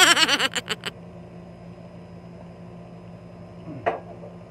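A brief warbling, pitched sound effect lasting under a second at the start, over a steady low electrical hum; a single short knock a little before the end.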